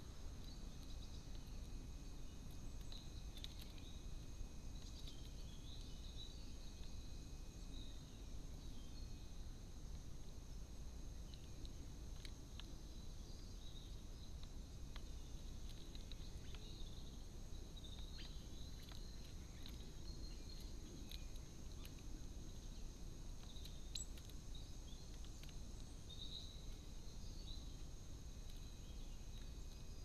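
Faint garden background: a steady low rumble and hiss with a thin high-pitched whine, scattered faint bird chirps, and light taps from great tits pecking seed in a plastic feeding tray, mostly in the middle of the stretch.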